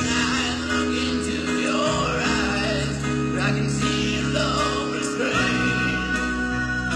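Live rock band playing a slow power ballad: a male lead singer sings at the piano over piano, guitar and bass, holding a long note near the end.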